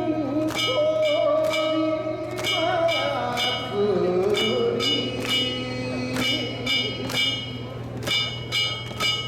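Danjiri float's small hand-struck gongs (kane) clanging in a quick steady rhythm, about two to three strikes a second, with a voice singing long sliding notes underneath.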